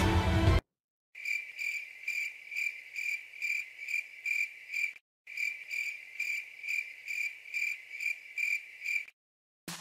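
Cricket-chirp sound effect: a high chirp repeated about three times a second, in two runs of about four seconds with a brief dead-silent break between, starting and stopping abruptly; the comic 'crickets' cue over an empty scene. Music cuts off just after the start, and a drum-backed music track cuts in at the very end.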